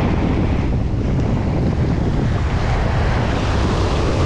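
Ocean surf breaking and washing up the sand, a steady rush, with wind buffeting the microphone.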